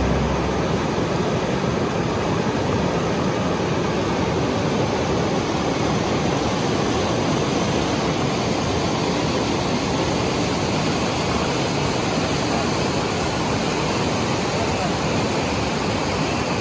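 Fast-flowing mountain river rushing, an even, unbroken noise of churning water.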